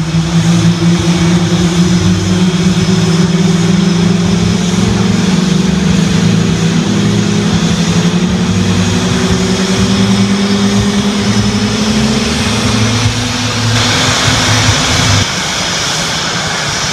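F/A-18 Hornet jet engines starting up: a steady whine that slowly rises in pitch and cuts off about 15 seconds in. A hissing rush of jet noise comes in shortly before that.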